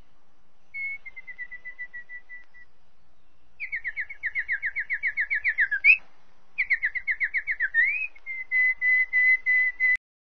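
A bird singing in whistled phrases. It starts with a short run of soft, slightly falling notes, then gives two fast runs of falling notes, each ending in a rising slur, and finishes with a steady series of even notes. The song cuts off suddenly near the end.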